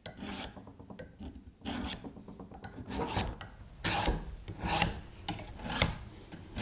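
Chicago Cutlery knife blade being drawn down a honing steel in a series of short metallic scraping strokes, roughly two a second, growing louder about halfway through. The honing straightens the bent-over micro-serrations of the edge.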